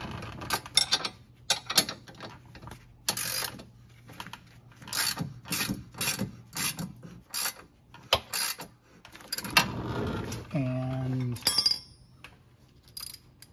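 Ratcheting wrench clicking in quick short strokes as a nut is run down on a sway bar link bolt, several bursts of clicks a second, stopping a little before the end.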